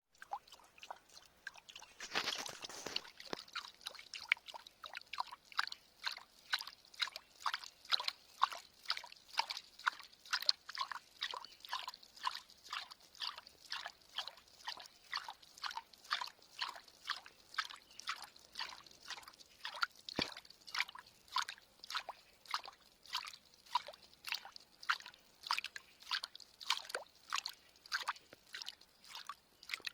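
Wood moving through water, with water sloshing and dripping in a steady rhythm of about two short splashes a second, after a louder rush of water about two seconds in.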